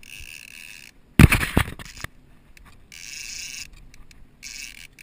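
A quick cluster of loud knocks about a second in. Around it, a steady high hiss cuts in and out several times.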